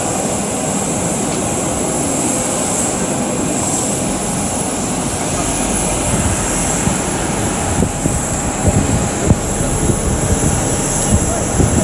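Steady loud roar of a running aircraft turbine on an airport apron, with a continuous high-pitched whine over it. Irregular low bumps grow over the second half, like wind buffeting the microphone.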